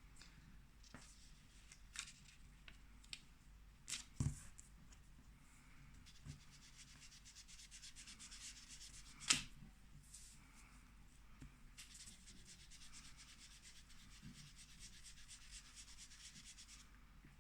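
An ink blending tool rubbed in circular motions over card stock, a faint, scratchy swishing, broken by a few light knocks, the sharpest about nine seconds in.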